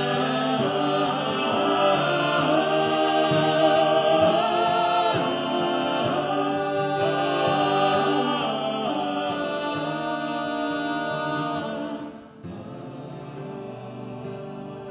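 Male vocal ensemble singing sustained close-harmony chords. About twelve seconds in the sound drops to a quieter held chord.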